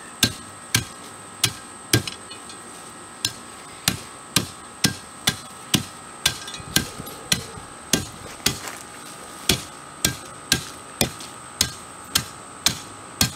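Hand tamper's steel plate striking a bed of 3/4-inch washed stone, a sharp thud about twice a second, firming up the stone base.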